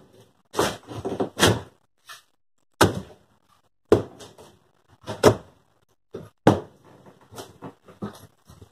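A splitting maul chopping into a rotten wooden shed floor along a wall: a series of dull knocks with wood cracking, roughly one a second, a few coming in quick pairs.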